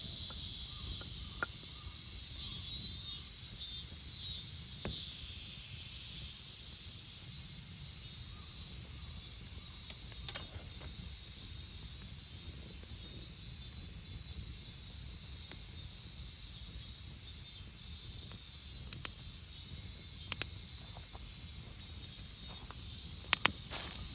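Steady, high-pitched chorus of insects droning without a break. A few short sharp clicks sound in the last few seconds.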